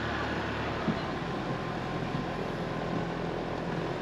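Tender boat's engine running steadily with a low hum under a broad rush of noise, and a small knock about a second in.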